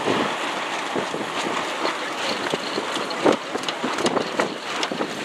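Wind rushing over the microphone and choppy water splashing against a small boat's hull, with irregular slaps of water, the loudest a little past three seconds in.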